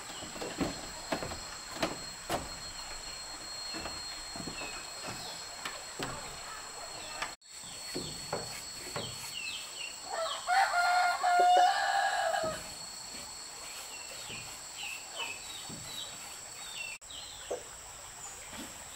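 A rooster crows once, about ten seconds in, for roughly two and a half seconds. Underneath are a steady high-pitched hum, many short chirps of small birds, and scattered light knocks.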